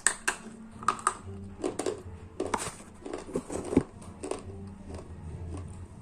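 Slate pencils being bitten and crunched between the teeth: a string of sharp, irregular snaps and crunches.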